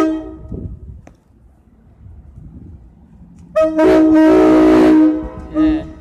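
NJ Transit train's air horn playing a horn show: a short blast at the start, then a long, loud chord of several tones lasting about a second and a half, and a brief toot near the end.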